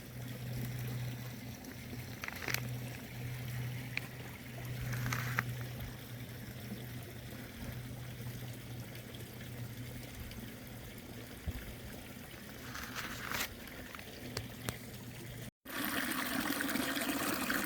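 Running water trickling and splashing steadily, with a low steady hum underneath. Near the end it cuts briefly and comes back louder.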